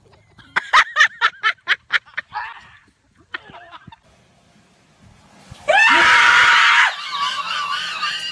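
A person gives a loud, sustained scream of about a second, a little past the middle. Before it comes a run of short, quick snickering sounds, and after it wavering voices continue more quietly.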